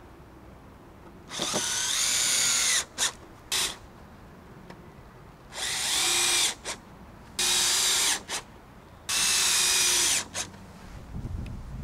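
Cordless drill driving screws into a timber decking board: four runs of about a second each, the motor whine rising as each run starts, with short taps of the trigger after most of them.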